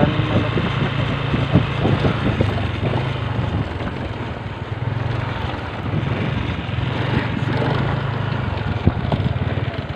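A small vehicle's engine running steadily while moving, with scattered knocks and rattles, the sharpest in the first few seconds and one about nine seconds in.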